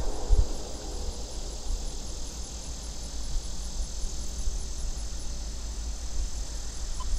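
Trackside ambience: a low, uneven rumble of wind on the microphone under a steady high drone of insects, with no train close enough to stand out.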